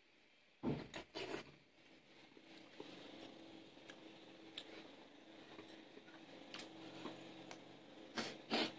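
Quiet sounds of a meal eaten by hand: a cluster of three sharp clicks and rustles about a second in and two more near the end, with faint scattered ticks of food and dishes between.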